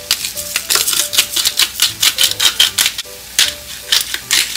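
Salt and pepper being shaken from a shaker over a frying pan: a quick run of rattling clicks, pausing briefly about three seconds in, then starting again.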